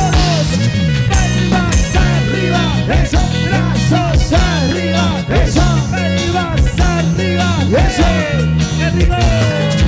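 Live cumbia band playing an instrumental passage: a steady repeating bass line and percussion under a lead melody full of sliding notes.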